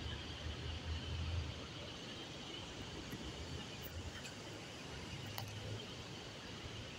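Shallow river current heard through a submerged camera: a steady, muffled rush with a low rumble that swells about a second in, and a few faint clicks in the middle.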